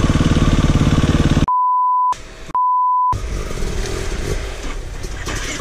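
A KTM EXC-F 350 single-cylinder four-stroke enduro engine running steadily, cut about a second and a half in by two short edited-in censor bleeps, single steady beep tones with the rest of the sound muted around them. After the second bleep the engine carries on, quieter and less even.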